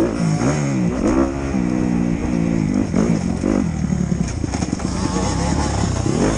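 Motocross bike engine heard on board from the rider's helmet camera, revving up and falling back in pitch several times as the throttle is worked through the track.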